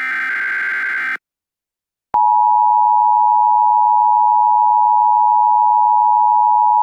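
Emergency Alert System tones: the last SAME header data burst ends about a second in, and after a second of silence the EAS two-tone attention signal starts, a loud steady tone that holds.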